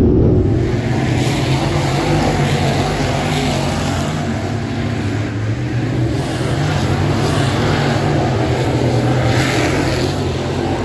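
Dirt late model race cars' V8 engines running laps on a dirt oval, a loud, steady drone of several cars at speed.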